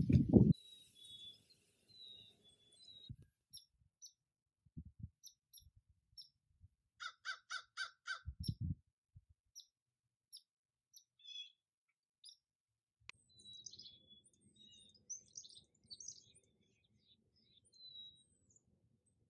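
A crow cawing five times in quick succession about seven seconds in, followed by a low thump. Small birds chirp on and off throughout.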